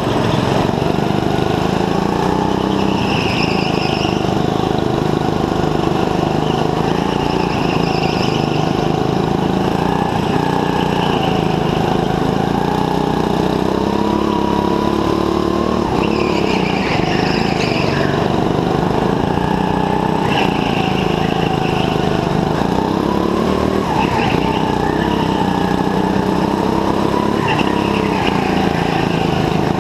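Indoor go-kart's small petrol engine, heard close from on board, its revs rising and falling through the corners. Short tyre squeals come every few seconds on the polished track.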